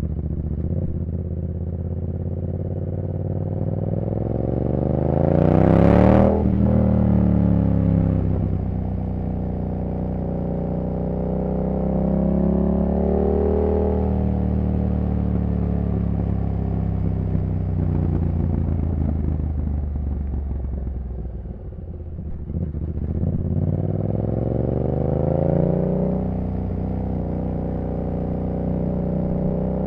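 2015 Yamaha MT-07's 689 cc CP2 parallel-twin engine running through a full race exhaust while the bike is ridden. The revs climb to a loud peak about six seconds in and fall away. After that the pitch rises and drops as the bike rides on, dipping low a little past twenty seconds before climbing again.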